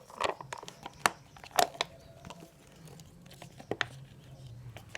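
Plastic spoon stirring glue and water in a plastic cup as the mixture thickens: irregular sharp clicks and taps of the spoon on the plastic, with short crinkly, sticky strokes.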